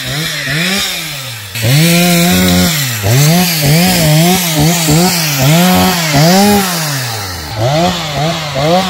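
Two-stroke chainsaw being throttled up and down over and over, its pitch rising and falling about twice a second, with a couple of longer held revs.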